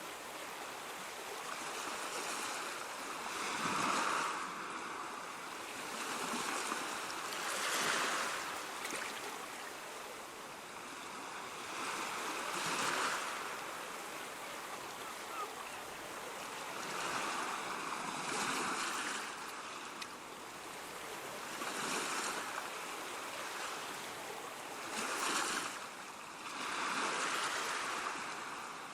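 Ocean waves breaking and washing onto a shore, a continuous surf hiss that swells with each wave every three to five seconds.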